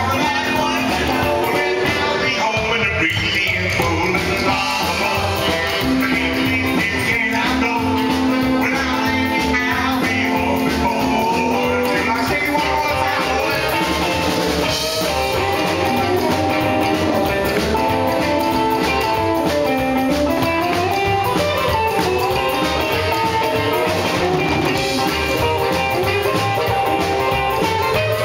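Live rockabilly band playing rock and roll: electric guitar, saxophone, upright bass and drums, with a man singing.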